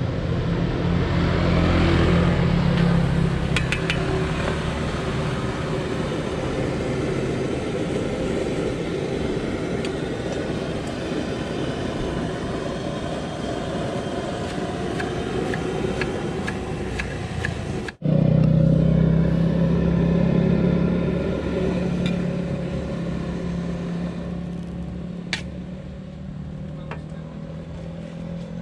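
Steady low rumble of road traffic going by, swelling and easing as vehicles pass, with a few light clinks near the end.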